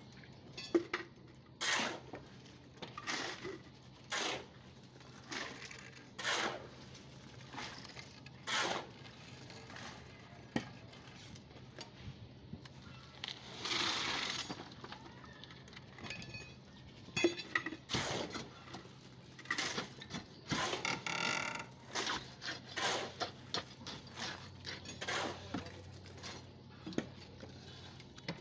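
Wet concrete being placed in wooden stair-step formwork: a string of sharp knocks, scrapes and clinks from metal pans and tools. About 14 s in comes a longer rush as a panful of concrete is tipped into the form.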